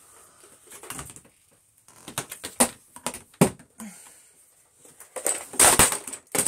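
Hard plastic clicking and clattering as a floor head is worked off the wand of a Hoover Blaze canister vacuum, the vacuum switched off; scattered clicks and knocks, then a louder burst of rattling about five and a half seconds in.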